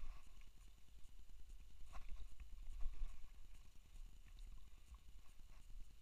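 Low, uneven rumble of wind buffeting the microphone, with a scatter of light clicks and taps at irregular moments, the loudest a little after two seconds in and near three seconds.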